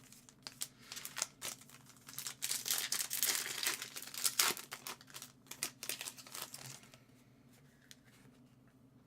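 Trading card pack wrapper being torn open and crinkled by hand, a run of sharp crackles and rustling that is densest a few seconds in, then dies away about two seconds before the end.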